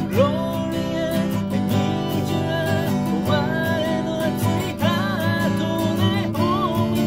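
Steel-string dreadnought acoustic guitar strummed in a steady rhythm, playing open chords.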